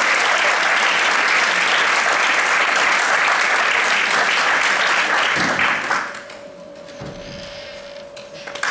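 Audience applauding loudly, dying away about six seconds in. A faint steady tone holds through the quieter spell, and the clapping starts up again at the very end.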